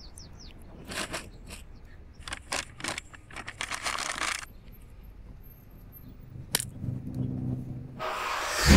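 Tissue paper and a paper bag crinkling in short bursts as they are handled. Near the end a low hum comes in, followed by a loud rushing noise.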